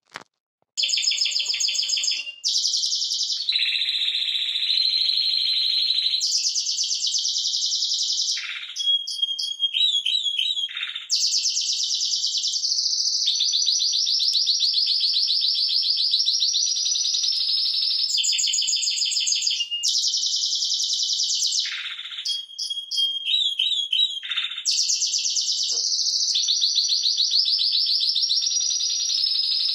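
Timbrado Español canary singing a long, unbroken song of rapid high trills and rolls that change from phrase to phrase, with a few short notes gliding downward. It is a tutor song, recorded for teaching young canaries to sing.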